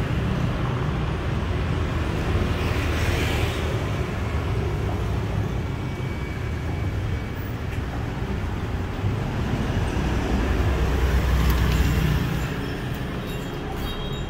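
Street traffic noise, a steady rumble of passing vehicles that grows louder around ten to twelve seconds in.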